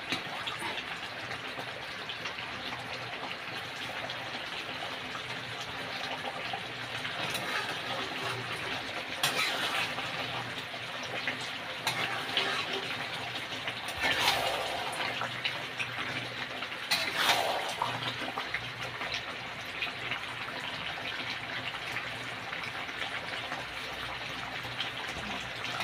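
Chicken curry gravy bubbling and sizzling in a kadai on a gas flame as it cooks down to thicken, with a few louder pops and spatters.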